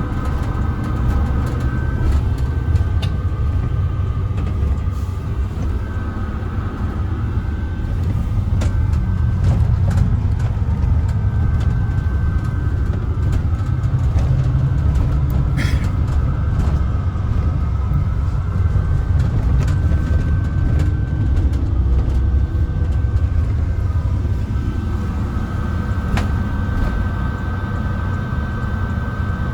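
Mercedes-Benz O307 city bus in motion, heard from inside the cabin: a steady low rumble of engine and road, with scattered rattles and clicks and a thin steady high tone throughout. There is one brief high squeak about halfway through.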